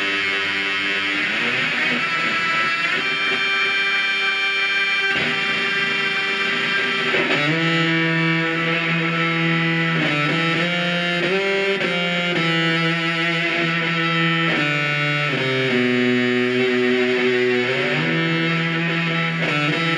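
Electric guitar played through the Noise Therapy FX Stomp Box Fuzz pedal, with its fuzz sounds stacked for a big distorted tone. Long sustained notes ring out, and from about seven seconds in the held notes change pitch every second or two.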